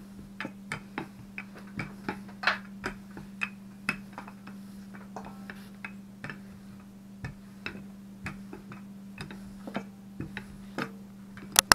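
Wooden handled rolling pin rolling out pizza dough, giving irregular light clicks and knocks as it is pushed back and forth, with a sharper double click near the end. A steady low hum runs underneath.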